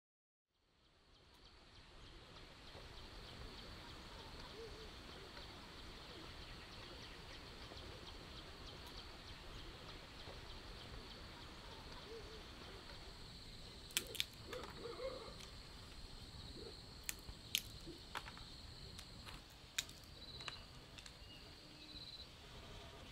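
Quiet countryside ambience fading in: a steady high-pitched drone with a few soft bird calls, and a scatter of sharp clicks and taps in the second half.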